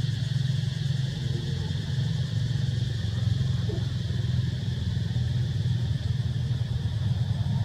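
Steady low rumble with an even, high-pitched drone above it, and a faint short squeak about three and a half seconds in.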